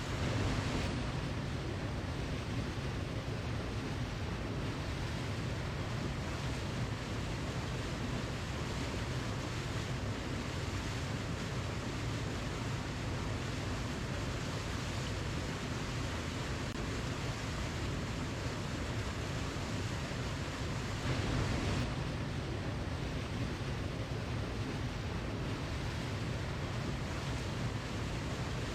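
Waterfall: a steady, unbroken rush of falling water, swelling slightly just after the start and again about three-quarters of the way through.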